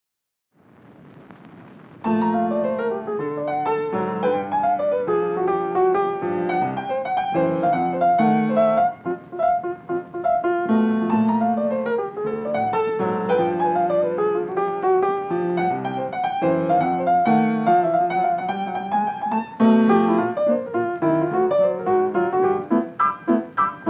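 Background piano music, a gentle melody of flowing notes that starts about two seconds in after a brief soft swell of noise.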